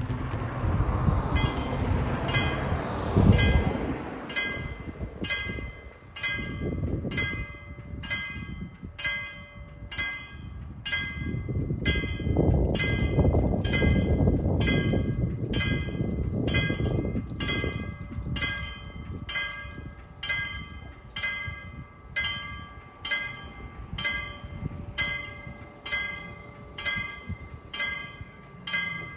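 Danish level-crossing warning bell starting up and ringing in even strokes a little more than once a second, signalling that the crossing is closing for an approaching light-rail train. A broad rushing noise swells under the bell near the start and again midway.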